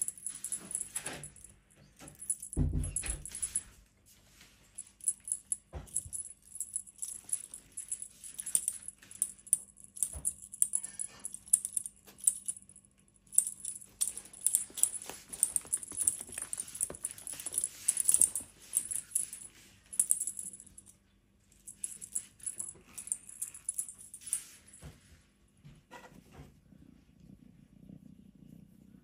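Scattered light rustling and clicking from a Scottish Straight kitten playing with a feather wand toy on burlap and rope, with a dull thump about three seconds in. In the last few seconds, a low steady purring begins as its chin is stroked.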